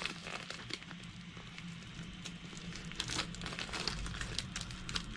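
Thin plastic packaging crinkling and rustling as it is handled and cut with scissors, with many small scattered crackles.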